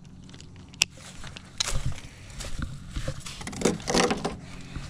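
A sharp click just under a second in, then several bursts of rustling and crunching that grow louder toward the end. It is the sound of handling on a shore of dry reed stalks and sand.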